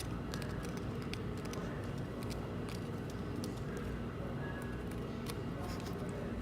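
ASMR trigger sounds: light, irregular clicks and taps, several a second, over a steady low hum.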